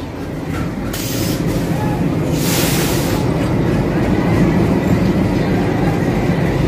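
Indian Railways diesel locomotives rolling past at close range, a steady low rumble, with two brief hisses about a second and two and a half seconds in.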